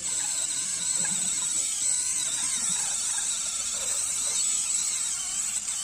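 Electric callus remover running with its coarse roller head, a steady high-pitched motor whine with a hiss as the roller grinds dead skin off the heel.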